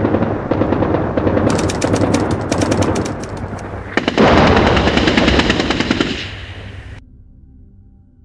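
Battle sound effect of rapid automatic gunfire over a dense rumble. It grows louder about four seconds in, fades, and cuts off about seven seconds in, leaving faint background music.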